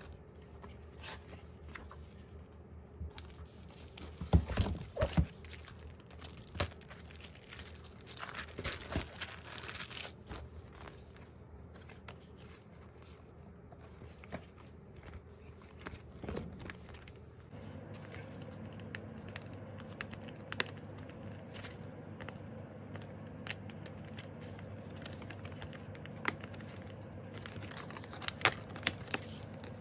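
Paper and card handling: a hardcover photobook's pages being turned and photo sheets and photocards shuffled, with rustles, scrapes and taps and a cluster of louder knocks about four seconds in. A low steady hum comes in about two-thirds of the way through.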